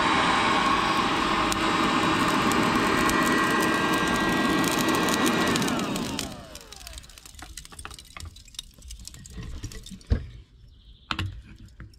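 Cheap electric hot-air charcoal lighter (Looftlighter-style) blowing into lump charcoal to light it. About six seconds in it is switched off and its fan winds down in a falling whine, leaving faint clicks and a sharp knock near the end.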